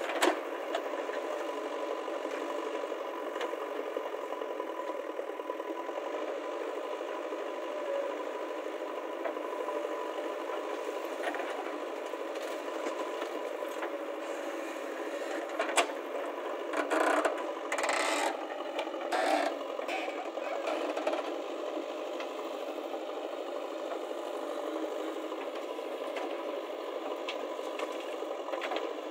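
JCB backhoe loader's diesel engine running steadily at work, with a tractor engine idling alongside. About two-thirds of the way through comes a spell of scraping and clattering as the bucket works the soil and dumps it into the trolley.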